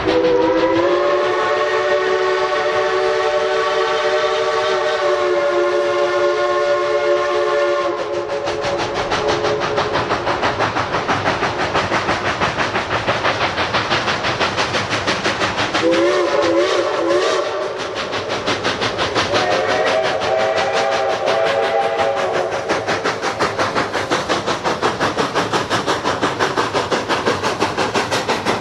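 Steam locomotive running with a steady rhythmic beat of about two to three pulses a second, sounding its chime whistle three times: a long blast of about eight seconds at the start, a short wavering blast past the middle, and a third of about three seconds soon after.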